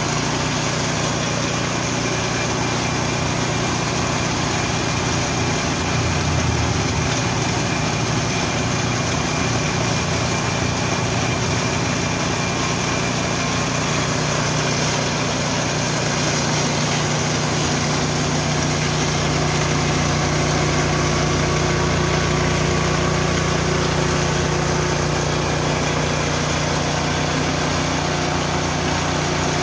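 Richi KD 350 mini rice and corn mill running steadily under its small petrol engine: a continuous machine hum with a wide noise over it, growing a little fuller about two-thirds of the way through.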